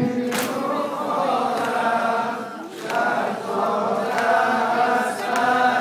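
A group of mourners chanting a Persian noha lament together, many voices overlapping, with sharp chest-beating slaps (matam) about every second and a quarter.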